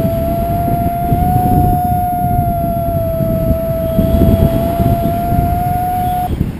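Paragliding variometer sounding one long steady tone that wavers slightly in pitch and cuts off near the end, over wind buffeting the microphone.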